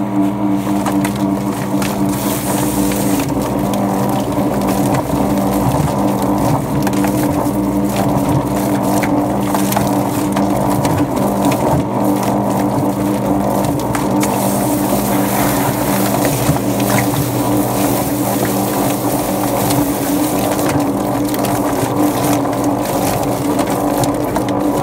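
Drum-style chicken plucker running steadily, its motor humming under the churning of a scalded chicken tumbling against the rubber plucking fingers, with a hose spraying water into the drum.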